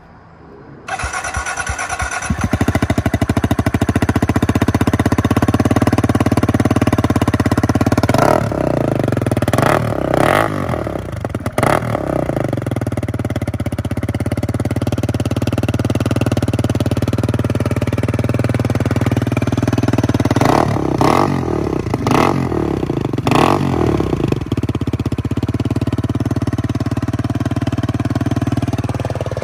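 Kawasaki Z125's single-cylinder four-stroke engine, breathing through a freshly installed aftermarket slip-on exhaust, starts up about a second in and settles into a steady idle. The throttle is blipped a few times about a third of the way in and again about two-thirds in, each rev rising and dropping back to idle.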